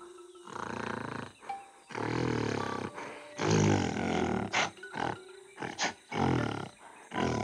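Animated silverback gorilla's threat calls in a standoff: a series of about six low calls, the longest about a second each, with two short sharp knocks in the second half.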